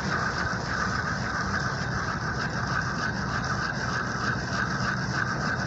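Spinning fishing reel being cranked to retrieve the line, a steady whir that pulses about twice a second, over a constant low hum.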